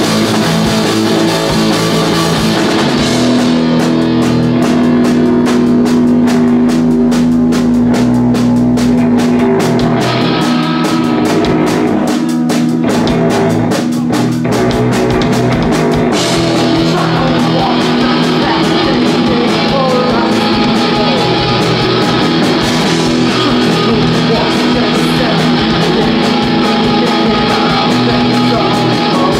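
Live rock band playing loud and steady: electric guitar, electric bass and a Ludwig drum kit. The cymbals and upper range thin out for a stretch, then fill back in about halfway through.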